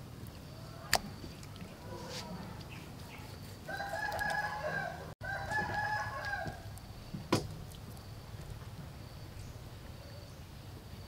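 A rooster crowing, one long crow from about four to nearly seven seconds in, cut for an instant in the middle. A sharp knock about a second in and a louder one just after the crow, from knife and meat on the wooden chopping board.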